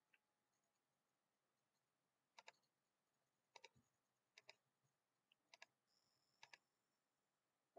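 Faint computer mouse clicks, about five in all, each a quick press-and-release double tick, spaced about a second apart.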